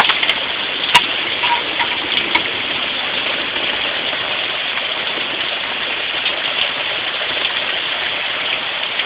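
Heavy rain pouring down steadily, a dense even hiss, with a few sharp ticks in the first second.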